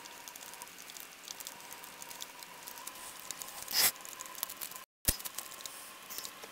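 Plastic lollipop wrapper crinkling as fingers pick and tear at it, a stream of quick, faint crackles with one louder rustle a little before the middle. The sound drops out briefly just before the middle, at an edit cut.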